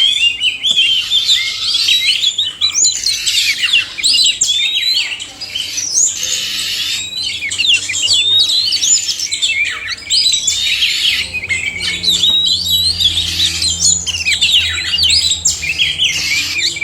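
Male and female Oriental magpie-robins singing together: a dense, continuous stream of quick whistles, chirps and rising and falling notes, several birds overlapping.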